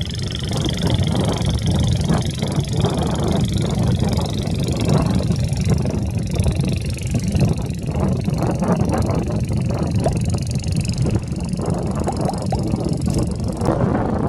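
Engines of an express passenger launch running steadily under way: a dense low drone with a steady high whine over it, the whine cutting off suddenly near the end.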